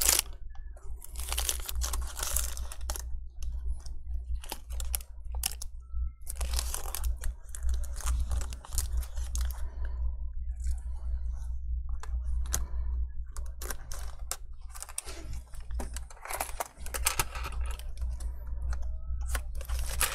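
Thin double-sided adhesive tape being pulled off its roll and pressed down along the edge of a laptop display frame by gloved hands: irregular spells of peeling and crinkling with small clicks, over a low steady hum.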